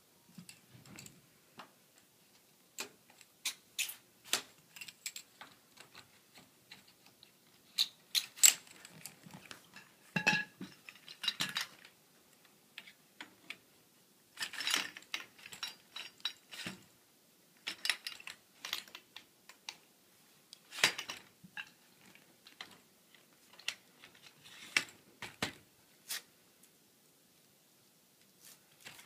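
Aluminium tubes and plastic fittings of a Folbot Citibot folding-kayak frame clacking and clicking as they are handled and fitted together, in irregular sharp knocks. About a third of the way through, one knock rings briefly like struck metal tubing.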